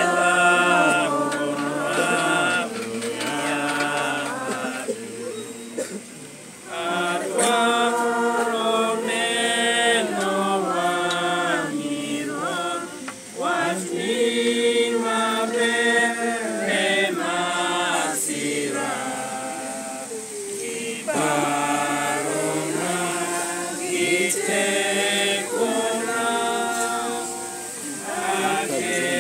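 A crowd of mourners singing a hymn together unaccompanied, in long held phrases with short pauses between them.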